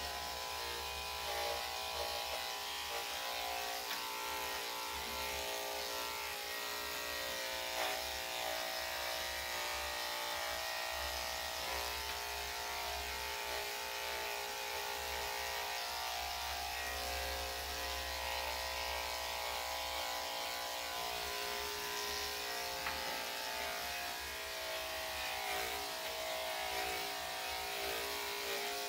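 Corded electric dog grooming clippers with a #7 blade running with a steady buzzing hum as they are worked through a spaniel's coat.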